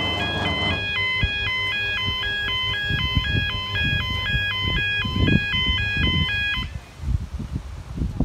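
Level crossing warning alarm sounding a rapid stepped, warbling electronic tone while the barriers move, cutting off about seven seconds in. Wind buffets the microphone after it stops.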